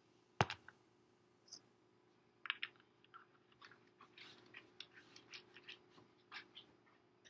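A sharp knock about half a second in, then a run of irregular wet gulps and mouth clicks as a person chugs carbonated soda.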